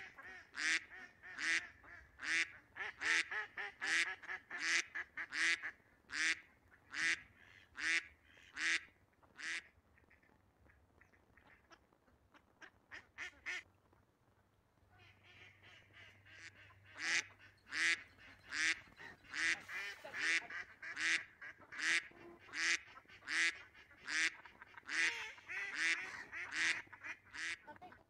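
Waterfowl calling: a long, regular series of loud calls, about one every three-quarters of a second. The calls break off for a few seconds in the middle, where only a few fainter, quicker calls are heard, then resume.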